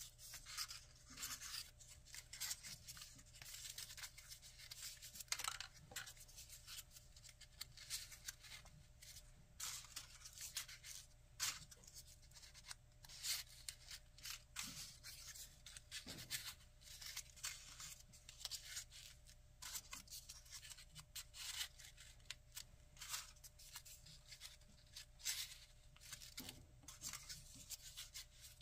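Folded paper units of a 3D origami model rustling and scraping against each other as they are pushed together by hand, in irregular short crisp crackles, several a second.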